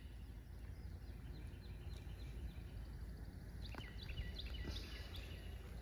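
Quiet outdoor ambience with small birds chirping in the background, a run of short high calls that is clearest in the last couple of seconds.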